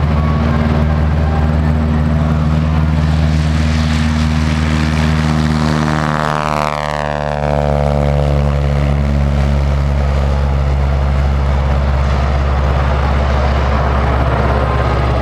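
Open-cockpit biplane's propeller engine running at takeoff power as the plane rolls, lifts off and climbs away. About six to seven seconds in, as it passes the camera, a sweeping, falling whoosh runs through the engine note.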